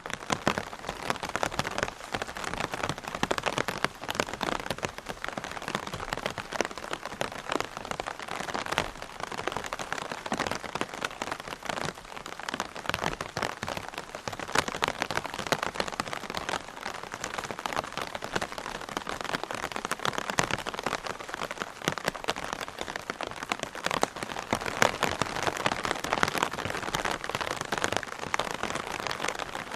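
Rain drumming steadily on an umbrella canopy, a dense continuous patter of many small drop impacts.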